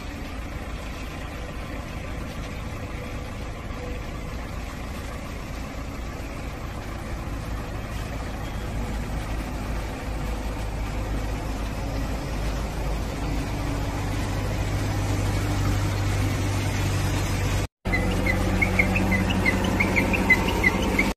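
Diesel engine of an Ajax Fiori self-loading concrete mixer running steadily, growing gradually louder. After a brief break near the end it is louder, with a run of light ticks over the engine.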